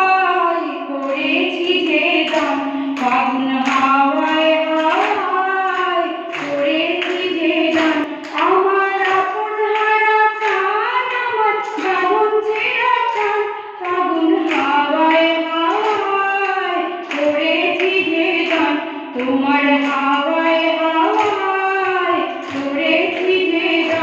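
A woman singing a song solo, her voice gliding between held notes, over a steady percussive beat.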